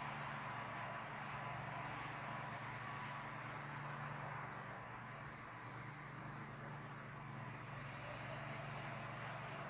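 A steady low hum with faint, scattered bird chirps.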